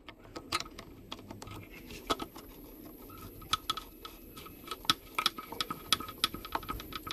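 A screwdriver worked around a motorcycle throttle body's hoses, clamps and connectors during reassembly, making scattered small clicks and taps of metal and plastic that grow busier about halfway through.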